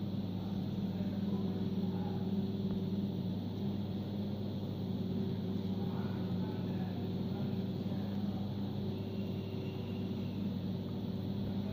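Steady low hum of a running motor or appliance, with several tones in it and no change in level.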